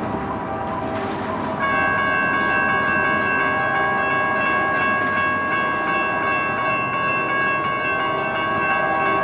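Freight train rumbling past with rail noise, then about one and a half seconds in a locomotive air horn sounds a chord and holds it in one long blast.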